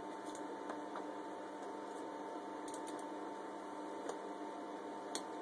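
Steady background hum with a thin high tone, broken by a few faint clicks, as of something small being handled.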